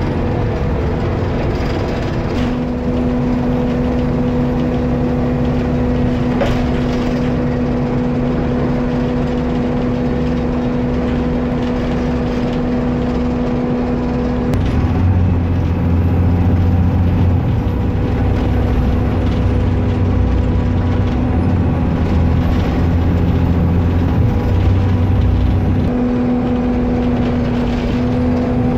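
Engine of an Alexander ALX400 double-decker bus, heard from the back seats of the lower deck while the bus is under way. A steady hum runs over a deep low rumble. About halfway through the hum fades and the low engine note grows louder for around ten seconds, then the hum returns near the end.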